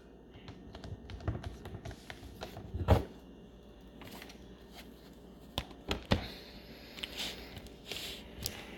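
Plastic laptop bottom cover being pressed back on by hand: scattered clicks and taps as its clips snap into place, with a few louder knocks.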